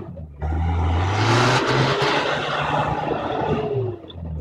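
Toyota 4x4's engine revving hard under load on a steep dirt climb, the pitch rising through a long burst from about half a second in and falling away near the end, with a hiss of loose dirt thrown by the spinning tyres.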